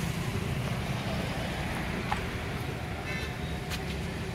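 An SUV running and rolling slowly at close range, a steady low engine and tyre rumble with street noise around it. A brief click sounds about two seconds in.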